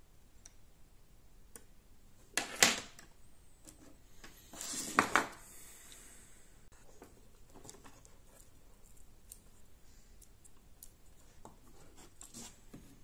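Scissors cutting through insulated wires: two snips about two seconds apart, the second one longer.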